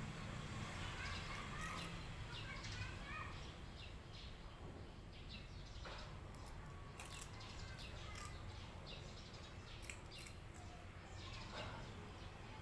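Faint bird chirping over a low steady hum. Scattered crisp clicks come from a cat crunching dry stick-shaped snacks.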